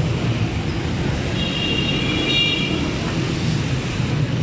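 Steady roadside traffic rumble of passing vehicles. A high, steady multi-pitched tone sounds for about a second and a half, starting about a second and a half in.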